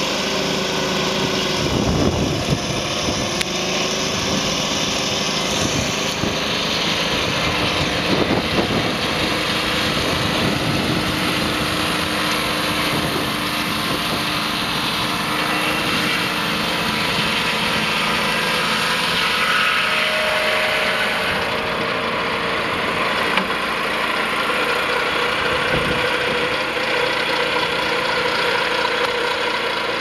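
Portable sawmill's 27 hp twin-cylinder Kohler petrol engine running steadily under load as its saw blade cuts through a cypress macrocarpa log.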